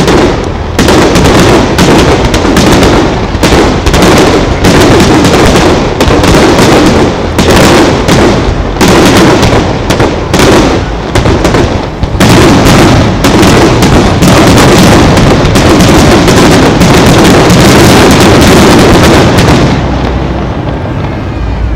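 Fireworks display: a rapid barrage of aerial shells bursting, loud bangs coming in quick succession over a continuous rumble and crackle. The barrage thins out near the end.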